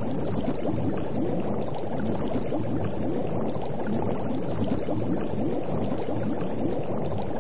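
Steady, dense bubbling of water: a continuous mass of small bubble pops.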